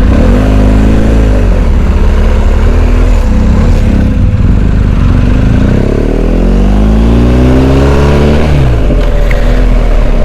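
Motorcycle engine pulling away and accelerating, its pitch climbing and then dropping at the gear changes twice, over a loud, steady low rumble.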